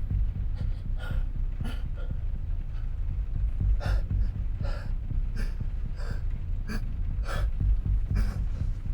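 A person breathing hard in short, repeated gasps over a steady low rumble.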